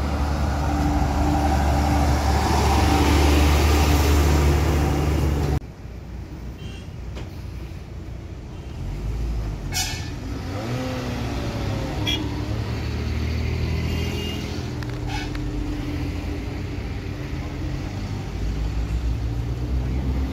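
Heavy truck diesel engine running close by, loud and steady, cut off abruptly about five seconds in. A quieter, steady engine idle follows, with a few sharp clicks.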